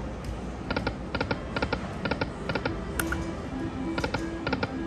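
Aristocrat Lightning Cash slot machine spinning its reels: short runs of quick electronic clicks repeating about every half second, with a few short musical tones in the second half.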